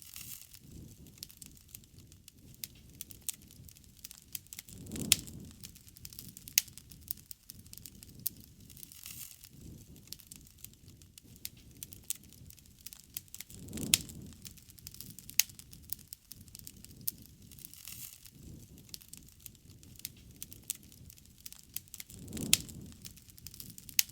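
Wood campfire crackling, with frequent sharp pops and snaps. A low rushing swell rises and fades three times, each with a loud pop at its peak.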